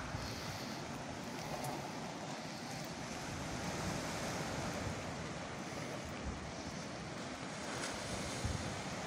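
Sea waves breaking and washing on a rocky shore, a steady rushing surf with wind on the microphone.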